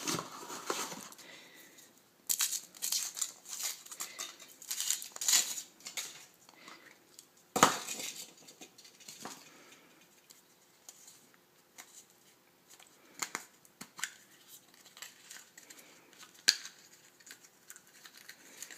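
Foil wrapper of a Kinder Surprise chocolate egg crinkling and tearing as it is peeled off by hand, with a sharp snap about seven and a half seconds in, then scattered small clicks and rustles.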